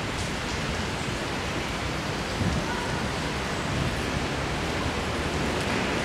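Steady, even outdoor noise: a broad hiss with a low rumble underneath, holding level throughout.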